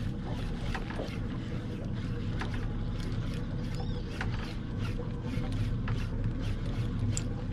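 Boat's outboard motor running steadily at slow trolling speed, an even low hum, with scattered light ticks over it.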